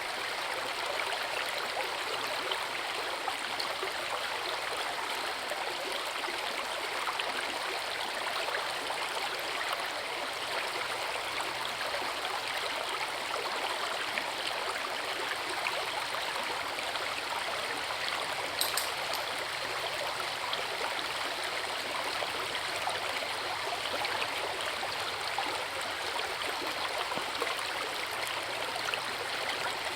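Forest river rushing steadily over rocks, an even wash of running water, with one brief high click about two-thirds of the way through.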